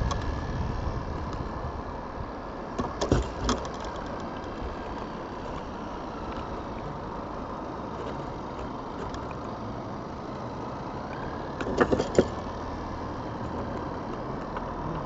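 Herring gull pecking at and tugging a small pencil tin: two short clusters of sharp knocks and rattles, about three seconds in and again about twelve seconds in, over a steady low background rumble.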